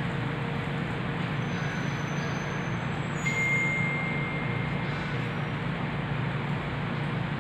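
Steady background noise: a low hum with an even hiss, and a short thin high tone a little past three seconds in.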